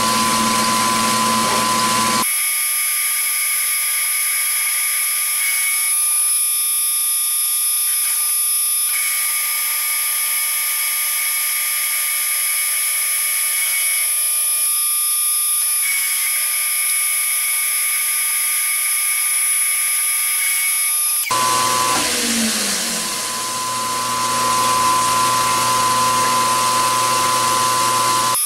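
Milling machine taking a heavy roughing cut in 1144 stress-proof steel with a roughing end mill: a steady, high-pitched machine whine with several held tones. The low rumble drops out abruptly about two seconds in and returns about three-quarters of the way through, where a low tone briefly slides downward.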